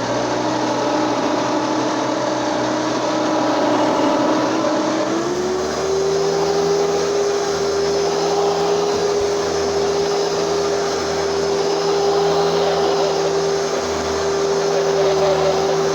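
Hoover Elite 2 bagged vacuum cleaner running steadily. About five seconds in, its motor whine steps up in pitch and holds there.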